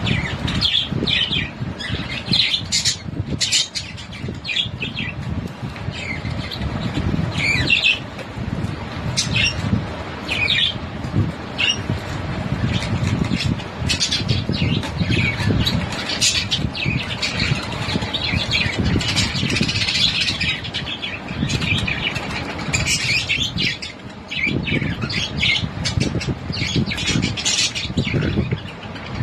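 Parrot squawking again and again in short, sharp calls, over a steady low rumble.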